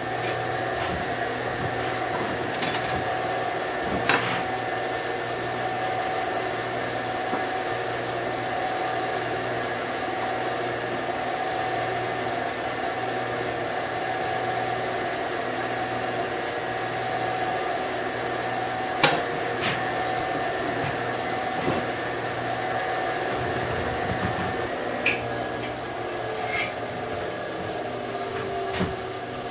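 A steady machine hum, like a running motor or fan, with a few sharp clicks and knocks over it.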